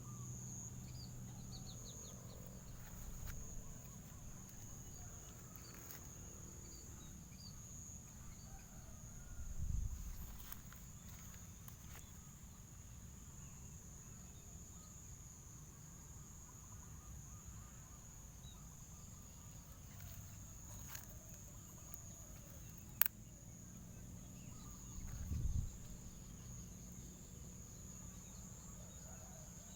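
Insects droning steadily in one high, even tone, with a few faint bird chirps. Two dull low thumps, the first about ten seconds in and the second near twenty-five seconds, and a single sharp click a little before the second thump.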